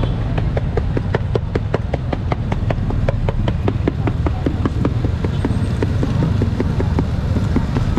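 Rotisserie spits clicking rapidly and evenly, about six clicks a second, over a steady low rumble.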